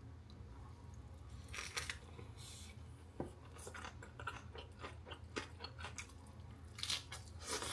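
Faint scattered clicks, taps and short rustles of food and kitchen things being handled, over a steady low hum; the loudest rustle comes near the end.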